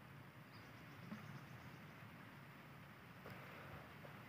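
Near silence: faint outdoor background with a couple of soft, faint rustles.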